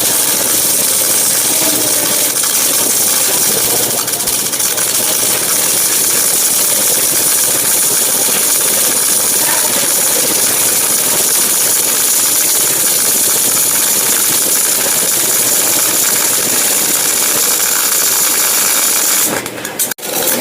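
MIG/MAG welding arc burning on a steel bracket, giving a continuous loud hiss that cuts off briefly near the end.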